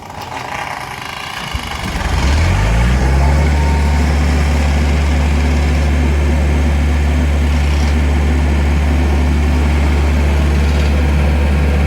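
Diesel engine of a portable air compressor cranked by its starter, catching about two seconds in, revving up briefly and settling into a steady idle. It is started warm without using the cold-start preheat.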